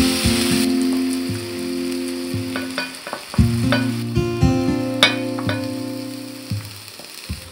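Sizzling from a hot cast-iron skillet as vegetables are pushed into it with wooden chopsticks from a ceramic bowl, with several light clicks of the chopsticks against the bowl in the middle. Soft guitar music plays underneath.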